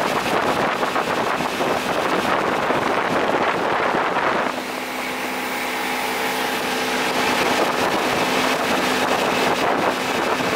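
85 hp Evinrude two-stroke outboard running a boat at speed, with wind blowing on the microphone and the rush of water. About four and a half seconds in, the wind noise drops and a steady engine drone comes through.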